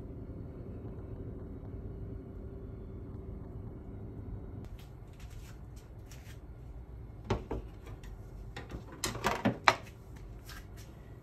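Kitchenware knocking on a stainless steel counter: a couple of knocks about seven seconds in and a louder clatter of clicks and knocks near the end as a bowl and a metal tray are handled. A steady low hum stops about four and a half seconds in.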